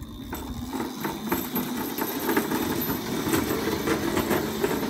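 Razor Crazy Cart electric drift kart driving over brick pavers: a steady electric motor hum with its hard wheels rumbling and clicking across the paver joints.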